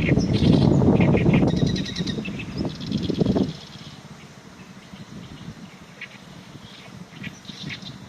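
Oriental reed warbler singing, its song a series of short, rapidly repeated notes, with wind buffeting the microphone loudly for the first three and a half seconds. The song thins out in the middle and picks up again near the end.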